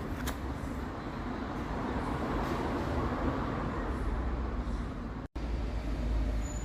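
Car in motion with a steady low rumbling drone from a deformed tyre, a tyre hum that sounds like a worn wheel bearing. The sound cuts out for an instant about five seconds in.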